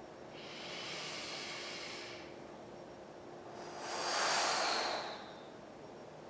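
A man breathing slowly and deeply while holding a stretch: two long breaths, the second louder.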